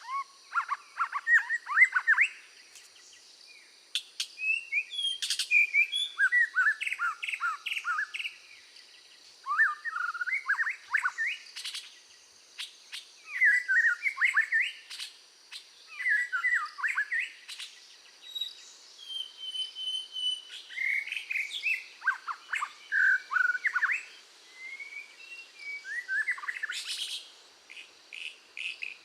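Minivet singing: bursts of rapid, high chirping notes lasting a second or two each, repeated every few seconds.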